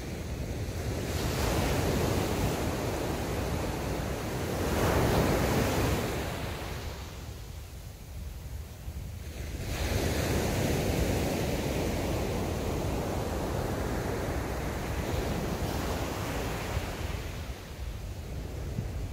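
Surf breaking and washing up a sandy beach, the rush swelling and fading every few seconds, with wind buffeting the microphone as a steady low rumble.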